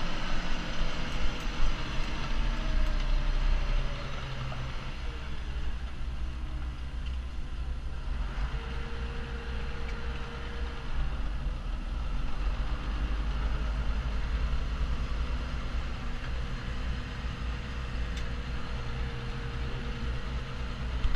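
Ursus tractor's diesel engine running steadily, heard from inside the cab, mixed with a combine harvester working close alongside. The sound drops a little in level about four seconds in.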